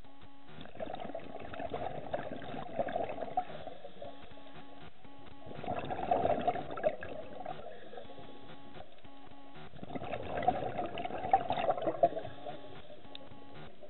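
Scuba regulator exhaust bubbling heard underwater: three bursts of bubbles, one with each exhalation, about four seconds apart, with quieter stretches between breaths.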